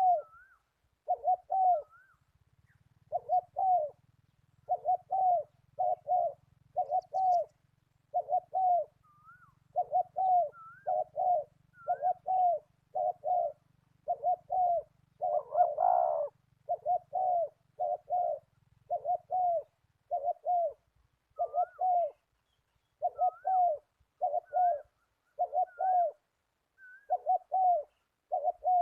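A dove cooing in a long, steady run of short notes, about one a second, some in quick pairs. Faint rising chirps sound above it, and a low hum fades out about two-thirds of the way in.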